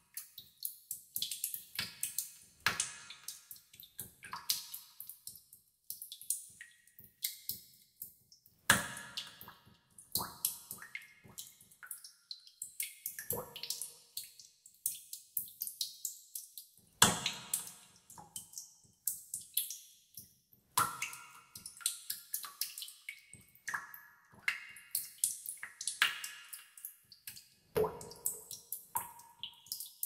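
Water drops falling into a tub of water, several plinks a second at an uneven pace, each ringing briefly at its own pitch; a few louder drops stand out.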